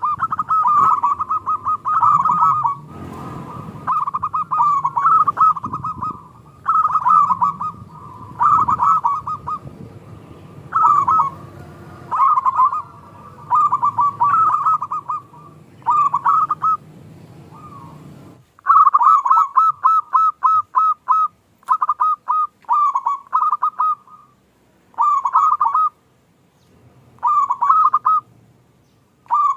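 Zebra doves (local perkutut) cooing in quick, rhythmic repeated phrases, one burst after another with short pauses between. A low rumbling background runs under the calls for the first two-thirds and stops suddenly, leaving the cooing clear.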